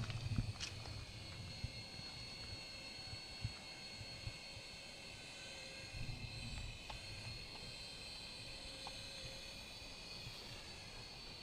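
Small electric motors of a DEERC dual-rotor toy RC helicopter in flight, giving a steady high-pitched whine that wavers slightly in pitch near the end.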